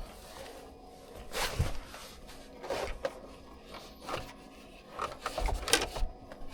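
Plastic centre-console trim being handled and worked loose, giving scattered clicks, knocks and rubbing, with a duller knock near the end.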